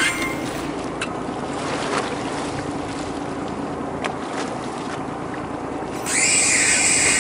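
Steady wash of sea and wind noise on a fishing boat, with a faint low hum and a few light knocks. About six seconds in, a louder hissing sound comes in.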